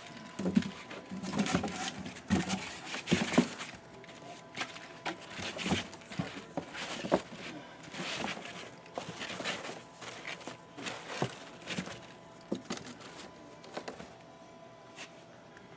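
Foam packing pieces and a cardboard box being handled: irregular rustling, scraping and light knocks of foam against cardboard, busiest in the first few seconds and sparser after.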